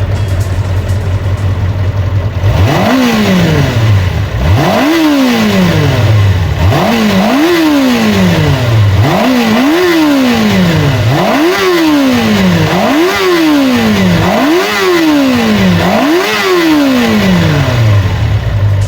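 Yamaha FZ400R's 399 cc inline-four engine idling, then revved in about nine quick throttle blips, each rising sharply and falling back, before settling back to idle near the end.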